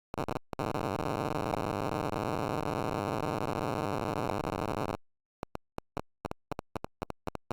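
Glitchy 'zipper' buzz from a frozen Windows 9x virtual machine in VMware, set off by mouse movement: the stuck sound output stutters harshly. It cuts off dead about five seconds in, then returns as a dozen or so short blips.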